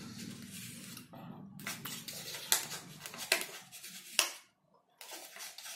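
Metal spoon scraping and clicking against a small plastic cup as it scoops, with a few sharp clicks roughly a second apart.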